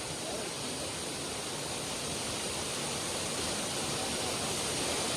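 Waterfall rushing: the steady, even noise of falling water.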